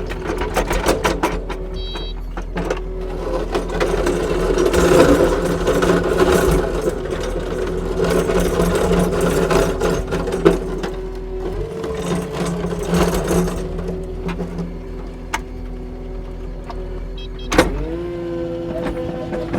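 Kubota SSV65 skid steer's diesel engine running steadily under work, with clicking and rattling from the machine. The engine note steps up about two-thirds of the way through, and near the end a sharp knock comes just before the pitch changes again.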